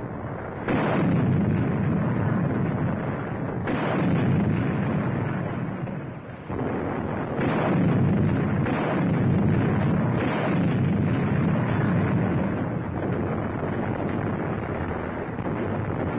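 British 25-pounder field guns firing in a series, about five sharp reports a few seconds apart, each trailing off into a long rumble.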